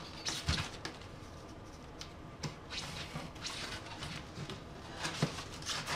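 Quiet handling noises: hands moving over a cardboard shipping box, with scattered short rustles and a few light knocks.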